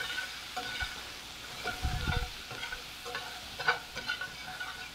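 Butter and minced garlic sizzling in a metal sauté pan while being stirred, with irregular clicks and scrapes of the utensil against the pan.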